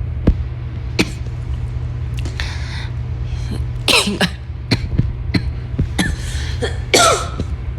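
A person coughing in a series of short, sharp coughs, some in quick pairs, over a steady low hum. It is the returning cough of a COVID-19 patient, who says that holding it in brings chest pain.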